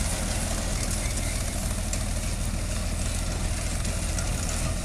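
Old tractor engine running steadily while it works a mounted cotton picker through the rows: a steady low hum at an even level.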